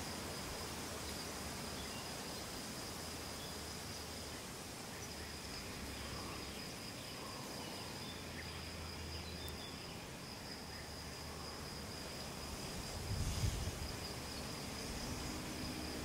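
Outdoor ambience: an insect trilling steadily on one high note over a low rumble, with a brief low thump about 13 seconds in.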